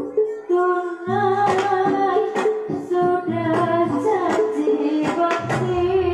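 Javanese gamelan music with a woman singing a winding melody over regular drum strokes and a low bass.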